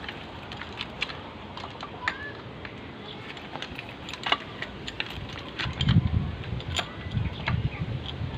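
Scattered light metallic clicks and taps of tools and engine parts being handled during timing chain and gear fitting, with a run of dull low thumps starting about halfway through.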